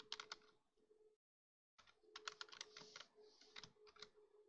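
Faint computer keyboard typing: a quick run of key clicks at the start and another run from about two to four seconds in, with a short dead-silent gap between, over a faint steady hum.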